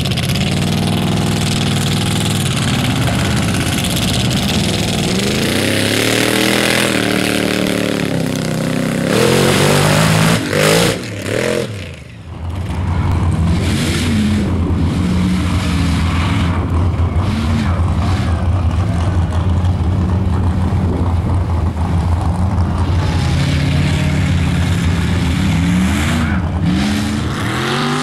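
Lifted 4x4 mud trucks' engines revving hard under load as they drive through a mud pit, pitch climbing and falling again and again. About halfway through the sound briefly drops, then a steadier low engine note carries on with more rev swells over it.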